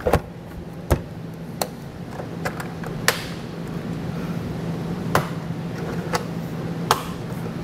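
Sharp plastic clicks and knocks, about seven spread over several seconds, as a Buick Encore GX tail light housing is pushed and seated into the body, over a steady low hum.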